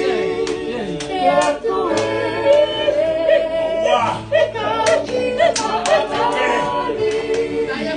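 Several voices singing together without instruments, with hand claps roughly twice a second.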